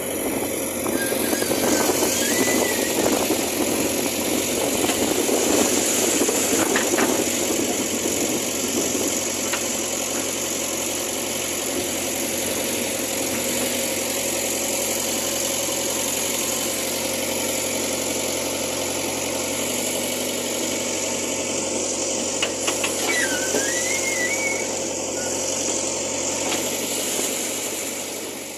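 JCB 3DX backhoe loader's diesel engine running, louder and rougher for the first several seconds as it works, then settling to a steady run. Short whistle-like chirps sound over it twice, about a second in and again near the end.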